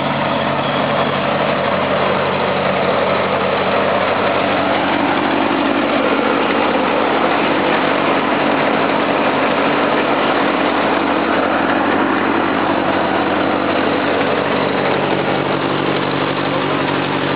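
Old farm tractor engine idling steadily.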